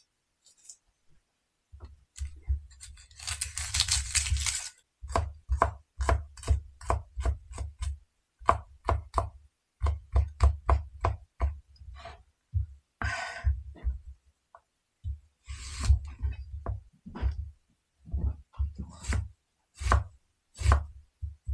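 Kitchen knife chopping an onion on a cutting board: quick strokes, about three a second, in runs of several, with a few short scraping sounds between the runs.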